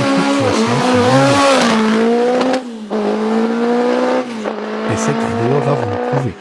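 Martini MK30 racing car's four-cylinder engine running hard at high revs, its note wavering slightly and dipping in brief breaks about two and a half and four seconds in and again near the end.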